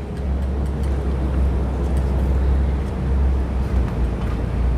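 Low steady outdoor rumble with a faint hiss above it and no speech, the ambient noise of an open-air gathering held silent.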